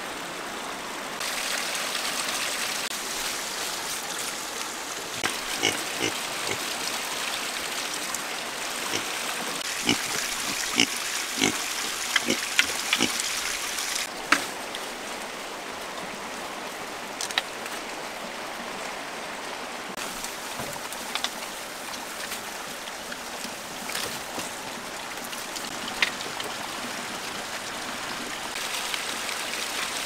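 Animals feeding on fresh greens, with short grunts and rustling leaves, most frequent in the first half, over a steady hiss of running water.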